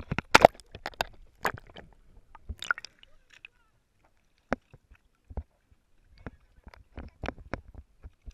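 Sea water splashing and slapping against a pedal boat's hull right at the camera, in irregular sharp splashes that are thickest in the first few seconds, drop to near quiet around the middle, and pick up again near the end.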